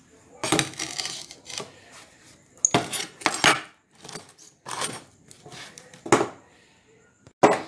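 Freshly welded square steel tubing clanking and clinking against the work surface as it is handled and set down, a series of uneven metal knocks with short ringing.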